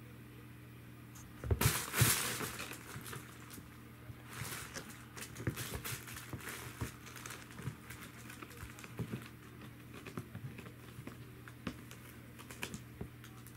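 Norwegian Forest Cat kitten playing with a felt cat tunnel on a carpet: thumps and rustling as the tunnel is batted, pounced on and rolled, loudest about two seconds in, then scattered lighter taps, scratches and scuffles.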